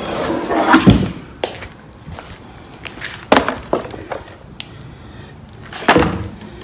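An all-weather floor mat being handled against its cardboard box: a scraping rustle about a second in, a few short sharp knocks, and a louder scuff near the end.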